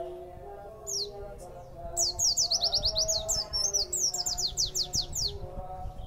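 Pleci (white-eye) singing: one quick, high downward-sweeping note about a second in, then from about two seconds a fast run of high descending notes, several a second, lasting about three seconds.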